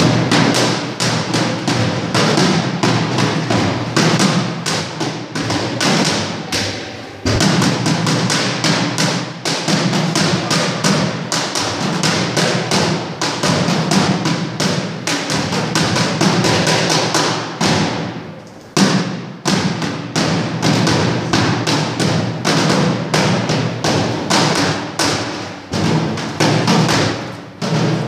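Traditional Tsonga drumming: fast, driving drum strokes at about four a second, with a few brief breaks in the rhythm.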